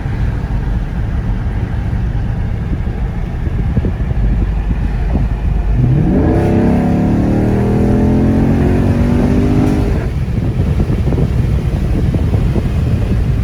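2019 Dodge Charger Scat Pack's 6.4-litre HEMI V8 with Corsa exhaust, driving in eco mode: a steady low rumble, then about six seconds in the engine revs up under acceleration, its pitch climbing for several seconds before it eases off near ten seconds.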